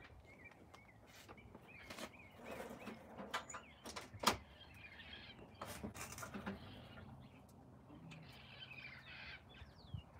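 Faint chirps and squawks of wild parrots in a nearby tree, with scattered sharp clicks of hand tools on metal, the loudest about four seconds in.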